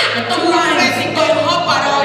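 Worship singing with music, led by a woman's voice through a microphone.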